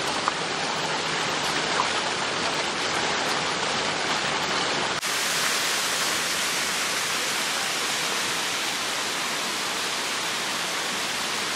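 Fountain water rushing steadily as it cascades down stepped tiers and splashes into the pool. About five seconds in the sound changes abruptly to a higher, hissier rush.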